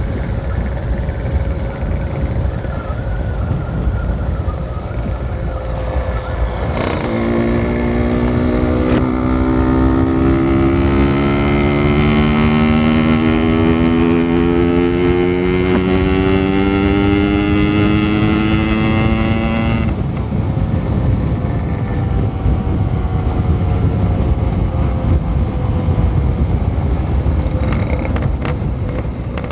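Yamaha RX King 135cc single-cylinder two-stroke engine riding along, with wind and road noise over the microphone. About seven seconds in the throttle opens and the engine note climbs slowly for some thirteen seconds, then the throttle closes and the note falls away.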